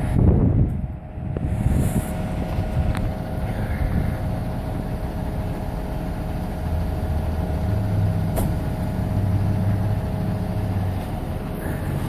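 Concrete mixer truck's diesel engine running steadily, with a low hum and a steady higher tone over it.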